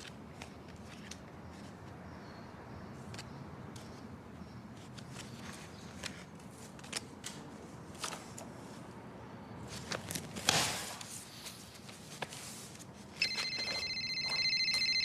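A house telephone ringing, one long pulsing ring that starts about 13 seconds in. Before it there are only faint scattered clicks and a brief rustle about 10 seconds in.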